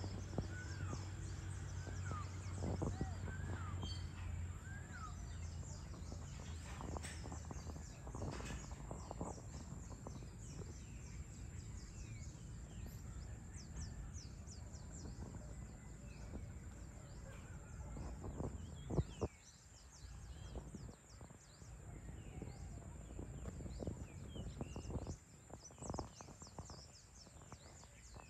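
Evening outdoor ambience: birds chirping and calling, scattered through the whole stretch, over a low steady background rumble. A short knock sounds about two-thirds of the way through.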